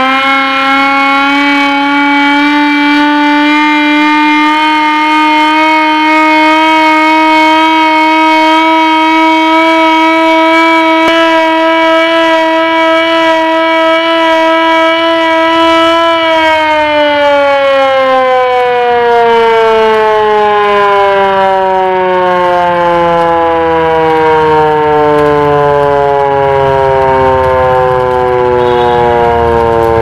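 Hand-cranked civil defence siren wailing, sounded to mark the start of a two-minute silence. Its pitch holds steady and creeps slightly upward for about sixteen seconds, then slowly falls as the rotor winds down.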